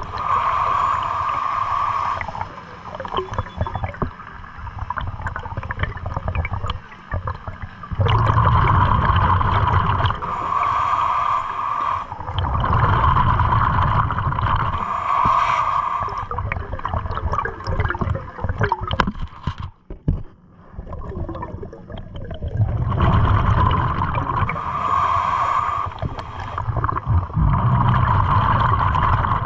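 A scuba diver's exhaled breath bubbling out of the regulator underwater. It comes in loud bursts of about two seconds each, repeated several times, with quieter gaps between breaths.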